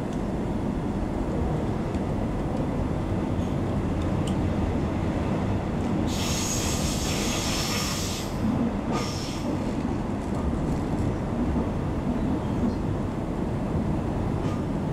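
Queensland Rail electric suburban train running, heard from inside the carriage: a steady low rumble of wheels on the track. About six seconds in, a two-second rush of high hiss and squeal comes as another train passes close alongside, with a shorter burst a second later.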